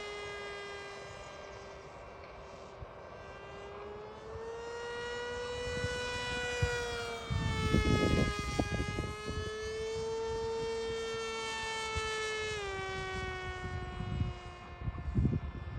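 Volantex Ranger 1600 RC plane's electric motor and propeller whining in flight, the pitch rising and falling several times and dropping about three-quarters of the way through. Wind buffets the microphone with rumbling gusts about halfway through and near the end.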